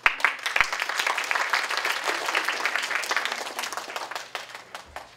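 Audience applauding, a dense patter of many hands clapping that thins out and dies away in the last second or so.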